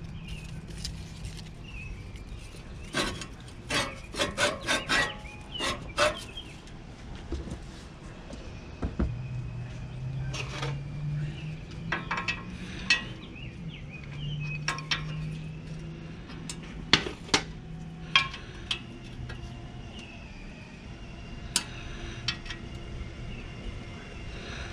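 Metal-on-metal clicks and clinks as an adjustable wrench turns the bed-knife adjustment bolts on a manual reel lawnmower, in short bursts of sharp clicks. A low steady hum joins in the middle and drops away later.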